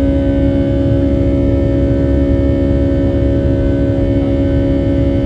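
Boeing 757-300 jet engines heard from inside the passenger cabin during the climb after takeoff: a loud, steady drone with a low rumble and a couple of steady humming tones.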